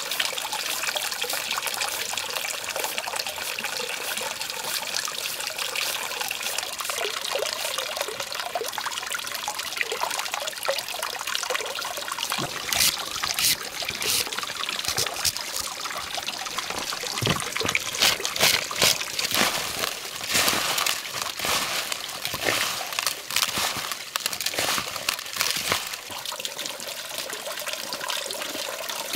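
Water running and trickling steadily, with a string of sharp clatters or splashes through the middle stretch.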